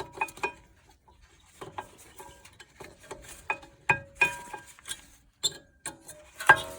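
Irregular metallic clicks, taps and clinks as new brake pads are worked into the rear caliper bracket of an Audi A5, many leaving a short metallic ring; the loudest clank comes near the end.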